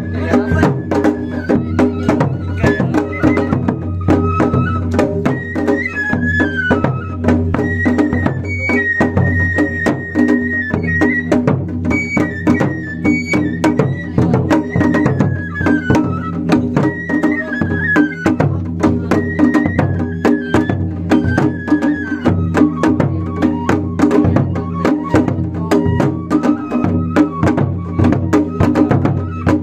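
Japanese festival music (matsuri-bayashi): a large barrel taiko on a festival cart beaten hard with wooden sticks in a fast, steady rhythm, with a high bamboo-flute melody over it.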